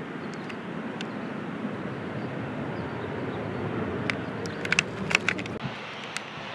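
Steady rumble of distant engines, with a quick cluster of sharp clicks about four to five seconds in.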